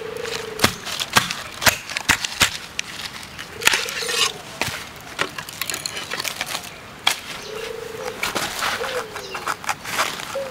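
Large bamboo culm being split lengthwise with a big knife: irregular sharp cracks and splintering snaps as the blade is driven in and the strips are pried apart. A low bird call repeats every few seconds behind it.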